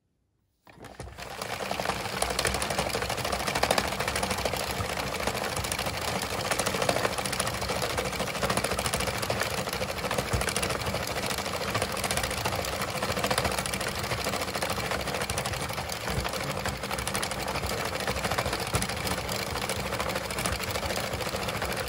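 A 22-needle circular knitting machine being turned by hand, its plastic needles clattering steadily as it knits round after round. The clatter starts abruptly just under a second in.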